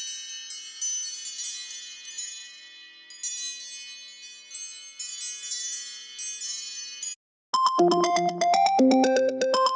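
Apple ringtones played back to back. The first is a high, tinkling chime melody of quick bell-like notes; it stops about seven seconds in, and after a brief silence a lower synth ringtone with a repeating melody begins.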